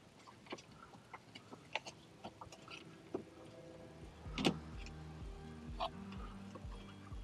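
Light clicks and knocks of plastic parts as a washer drain pump assembly and its hoses are handled and fitted back under the machine, with one louder knock about four and a half seconds in. Faint music with a low regular beat comes in around the middle.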